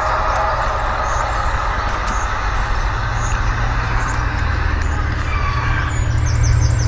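Loud, steady low droning rumble with a fainter haze above it: the unexplained 'strange noise' being filmed, a low drone that seems to come from beneath or from the sky. Short high chirps of birds come in during the second half.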